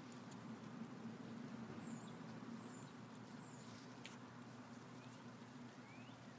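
Quiet background: a steady low hum with a few faint, short high chirps near the middle and two faint rising squeaks near the end.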